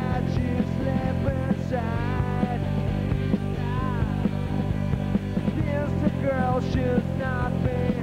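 Live rock band playing: electric guitars with notes bending in pitch over bass and a busy drum beat.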